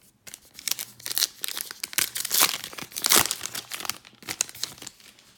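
A trading-card pack wrapper being torn open and crinkled by hand: a run of crackling rips and rustles over about four seconds, loudest in two sharp tears near the middle.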